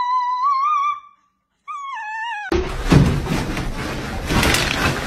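Small shaggy dog howling: a long wavering howl that breaks off about a second in, then a short falling howl. About two and a half seconds in, a sudden loud rustling noise with several knocks takes over.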